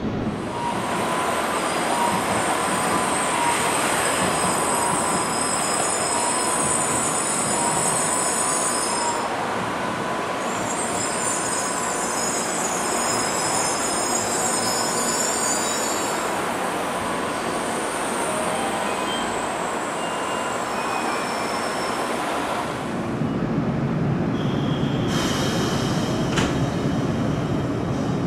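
JR 103-series electric train's wheels squealing in a high, steady squeal as it rolls slowly through curved track, the squeal dropping out briefly about nine seconds in. Near the end the squeal gives way to the lower rumble of a train rolling along the rails.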